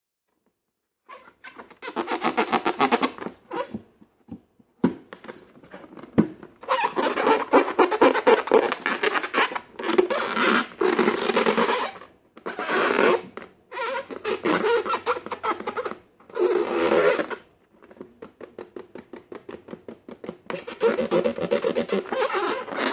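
Slime being squeezed and kneaded by hand: rapid wet crackles and small pops of trapped air, in stretches of a few seconds with short pauses between.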